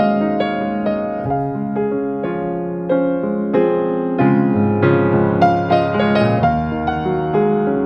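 Background piano music: gentle notes and chords struck in a steady flowing pattern.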